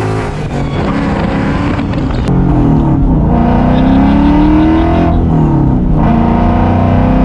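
A Ford 5.0 Coyote V8 in a 1999 Mustang GT accelerating hard under load. The engine note climbs, drops at a gear change about five seconds in, then climbs again.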